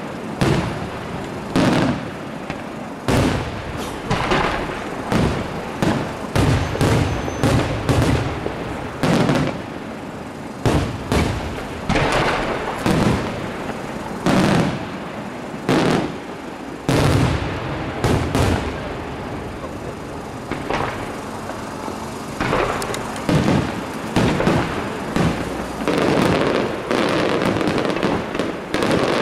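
Aerial firework shells bursting overhead in quick succession, one sharp boom after another. The bursts pack into a denser, near-continuous barrage near the end.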